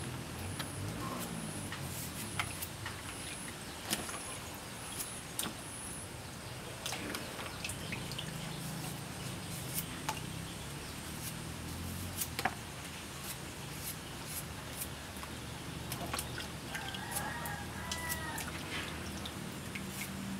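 Crisp, irregular clicks of a kitchen knife cutting through yardlong beans held in the hand, one cut every second or two, over a steady low hum.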